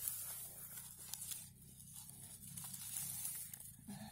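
Irregular rustling and crackling of dry pine cones and forest litter being handled, with a few sharp clicks.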